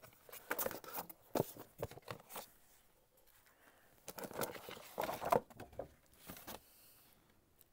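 Paper quilt patterns and plastic packaging being handled and laid down on a cutting mat: irregular bursts of rustling and crinkling in two main clusters, settling quiet near the end.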